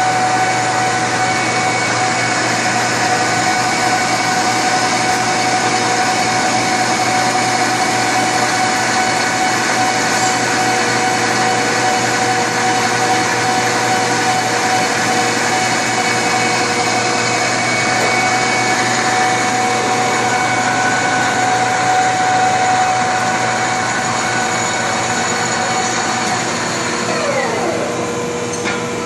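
WM460Ax1000 heavy-duty industrial lathe running steadily, a whirring mechanical hum with several whining tones. Near the end a whine falls in pitch and the sound gets a little quieter.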